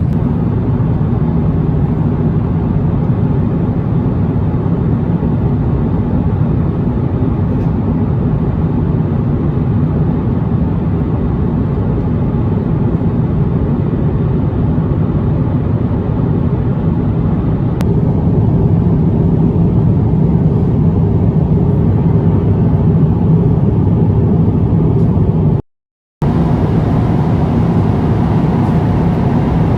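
Steady low rumble of a moving vehicle, slightly louder from about 18 seconds in, broken by a brief cut to silence near the end.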